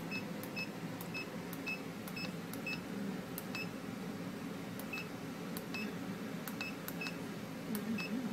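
Key beeps from an Onwa KP-8299A AIS GPS chart plotter, one short high beep per button press, as the MMSI digits are stepped through and changed. The beeps come in irregular runs of up to about two a second with pauses between, and faint key clicks fall among them.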